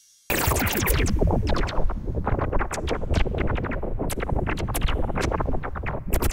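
Electronic animal-repellent noise that starts abruptly about a quarter second in: a dense, irregular run of sharp clicks over a strong low rumble.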